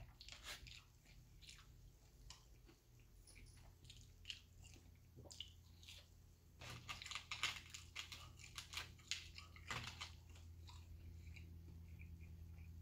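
A person chewing battered fried seafood close to the microphone: quiet, irregular crunching and mouth sounds, thickest from about six to ten seconds in, over a low steady hum.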